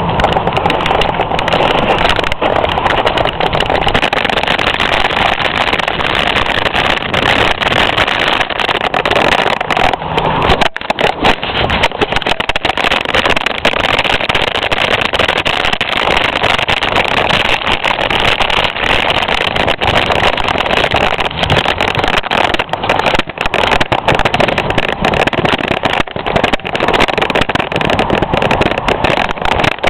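Steady rush of wind on the microphone with constant rattle and knocks from a Carrera Banshee X mountain bike riding fast down a rough forest dirt trail.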